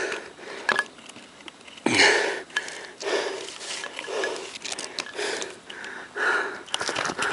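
Heavy breathing of an out-of-breath hiker close to the microphone, with repeated gusts about once a second and a louder one about two seconds in, plus a few faint clicks.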